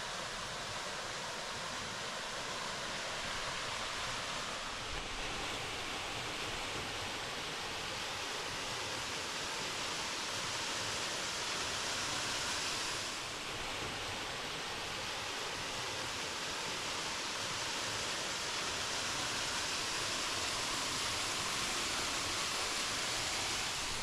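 Steady rush of fast-flowing water, an even hiss that hardly changes.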